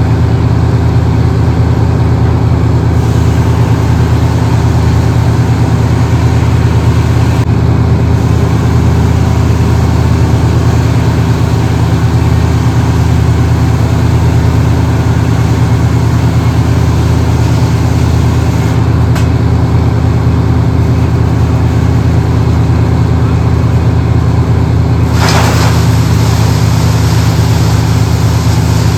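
A large engine running steadily at a constant speed, with a brief rushing noise about 25 seconds in.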